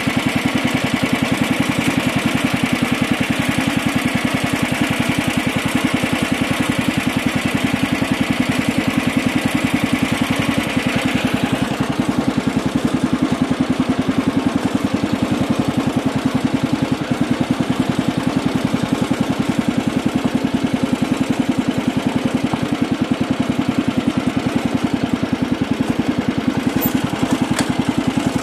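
MTD riding lawn tractor engine running steadily with an even pulsing beat. A higher whine in the sound drops away about twelve seconds in, and a few light clicks come near the end.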